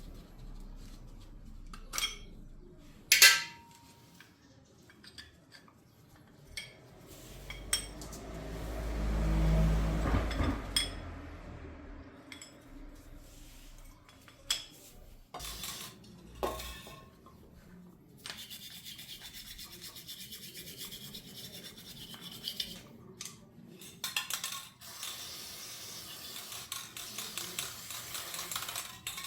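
Metal tools and brake parts clinking while work is done on a motorcycle's front brake caliper, with a louder noise that swells and fades about ten seconds in. A steady rubbing, scrubbing sound runs through the last ten seconds or so.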